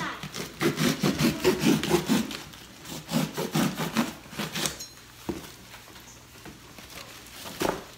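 Knife sawing through a cardboard box in quick back-and-forth strokes, about four or five a second, for the first half. Then it goes quieter, with a single sharp snap near the end.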